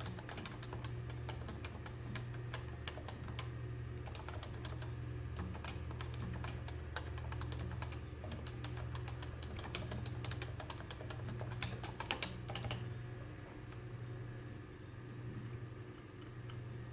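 Typing on a Topre Realforce 104UB keyboard with Topre capacitive switches, a quick run of key presses that thins out near the end. A steady low hum runs underneath.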